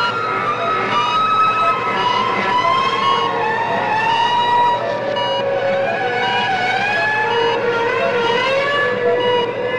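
Electronic soundtrack of wavering, siren-like tones gliding slowly up and down over one another, dotted with short repeated high beeps.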